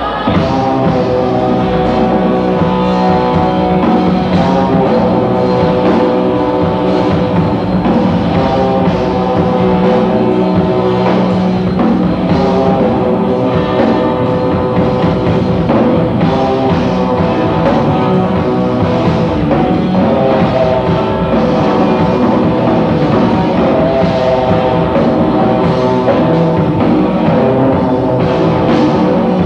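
Rock band playing live, electric guitar and drum kit, loud and dense. It comes in at full volume right at the start and stays at an even level.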